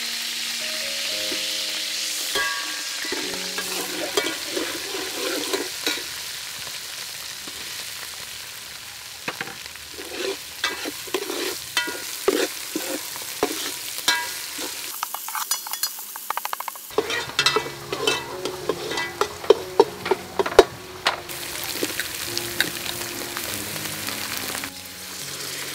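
Red curry paste frying and sizzling in hot oil in a metal pot. A metal ladle stirs it, scraping and clanking against the pot, with the knocks coming thick and loud in the second half.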